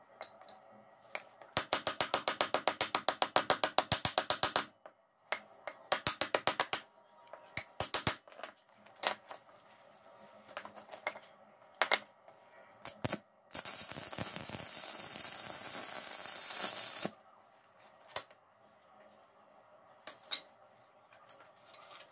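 Metallic tapping and clinking on a steel flat bar. It begins with a fast, even run of taps, about ten a second, lasting three seconds, then a shorter run and scattered single clinks. Past the middle a steady hiss lasts about three and a half seconds.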